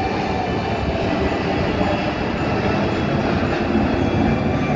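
Steady, loud roar of the Blue Angels' F/A-18 Hornet jet engines as the formation flies past.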